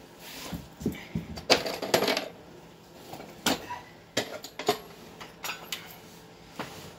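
Steel hand tools clinking and clattering as they are picked up and handled: a socket and a long bar being readied to tighten the axle nut. The sharp metal clinks come irregularly, about ten in all, each ringing briefly.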